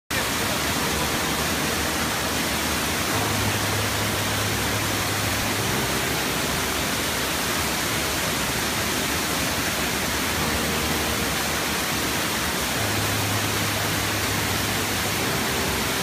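Waterfall: water pouring down a tiered rock cascade close by in a steady, even rush.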